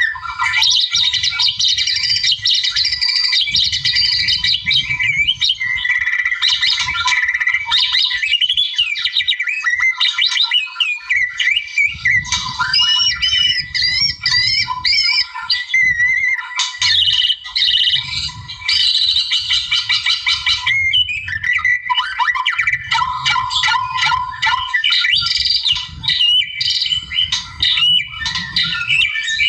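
White-rumped shama singing without pause: a rich, varied song of clear whistles, quick chattering runs and harsh squawk-like notes, with a faint low rumble coming and going underneath.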